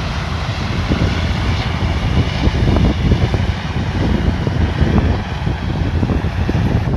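Combine harvester running under load, a steady engine hum mixed with a dense, irregular rattling and knocking from the machine.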